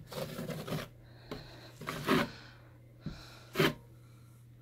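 Wide drywall taping knife scraping and smoothing wet joint compound across a wall in several separate strokes, the loudest about two seconds in.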